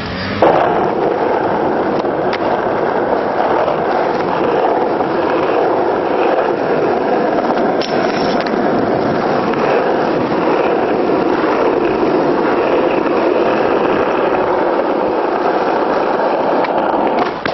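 Skateboard wheels rolling steadily over rough asphalt, with a brief metal grind on a low flat bar about eight seconds in.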